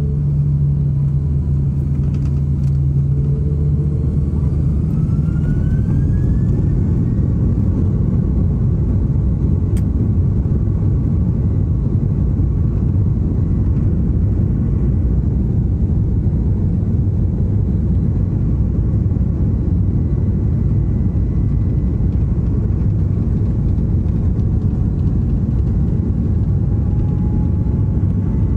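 Airbus A330's jet engines heard from inside the cabin during take-off. Steady engine tones give way about four seconds in to a louder, fuller roar and rumble, with a faint rising whine as the engines spool up to take-off thrust, and this continues steadily through the take-off run.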